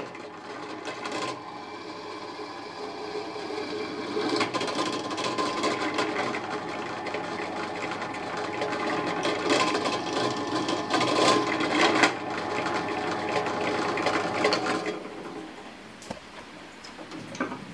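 Drill press running, its twist bit cutting holes through a forged steel blade handle: a steady motor hum with the grinding of the bit in the steel. The cutting gets louder about four seconds in and falls away about three seconds before the end.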